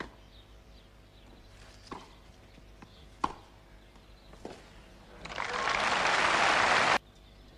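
Tennis ball struck with rackets in a rally: four sharp hits a second or two apart, the third the loudest. Then crowd applause swells about five seconds in and cuts off abruptly.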